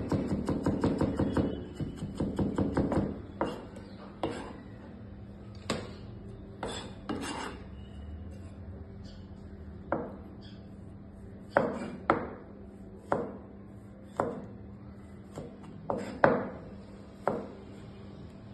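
Chef's knife chopping on a plastic cutting board. A fast run of rapid chops lasts about the first three seconds, then single, slower cuts come roughly once a second as a tomato is sliced. A faint, steady low hum runs underneath.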